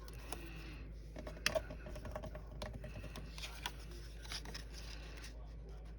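Quiet clicks, taps and rustles of paper and adhesive tape being handled on a craft table.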